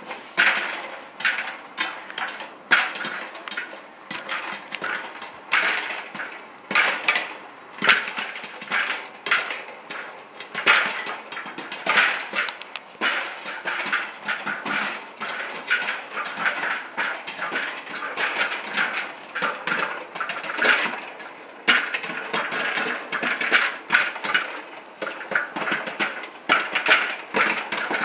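Popcorn kernels popping in a clear-dome tabletop popcorn maker: many sharp, irregular pops, several a second, over the steady hum of its motor.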